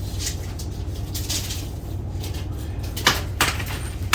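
Hammer striking wood, two sharp blows near the end that begin a steady run of blows, over a low steady hum and some faint handling clatter.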